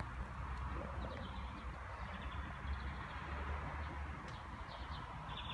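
Outdoor ambience: a steady low rumble with faint, rapid high chirps that come and go several times.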